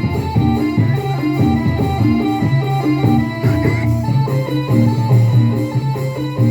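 Live band music played instrumentally: plucked guitar over a repeating bass line in a steady groove.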